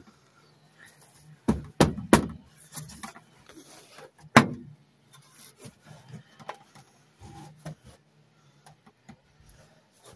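A wooden board knocked into place against a timber frame: three quick knocks about a second and a half in, a single louder knock at about four seconds, then faint clicks and scrapes of wood being shifted.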